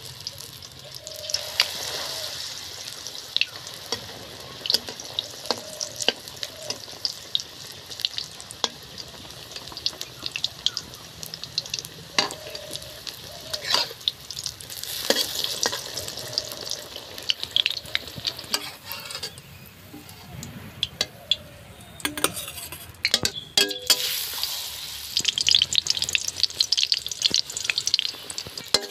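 Egg-battered brinjal pieces sizzling and crackling in hot oil in a metal kadai. A steel spatula scrapes and taps against the pan now and then, with several knocks in quick succession about three quarters of the way through.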